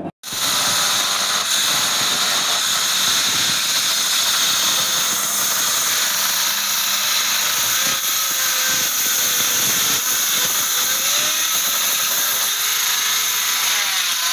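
Electric hand planer running steadily, shaving a wooden plank: a continuous high, hissing whine of the spinning cutter head.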